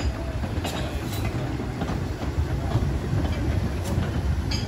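Narrow-gauge steam train running in the dark: a steady low rumble with a few scattered clicks.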